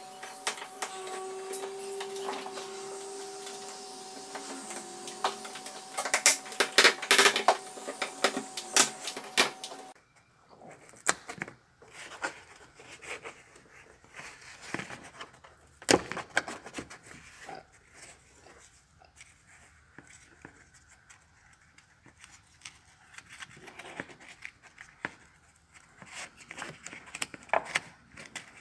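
Hands handling a car's plastic interior trim and seat belt: scattered clicks, knocks and rubbing as trim pieces and the seat-belt guide are worked loose. A steady hum lies under the first third or so, then stops.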